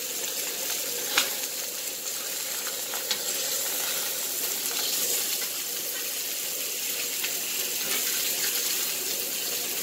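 Stuffed chicken breasts searing in a cast-iron skillet: a steady sizzle, with a couple of light clicks from tongs against the pan about one and three seconds in. The cook says the pan is not as hot as it should be.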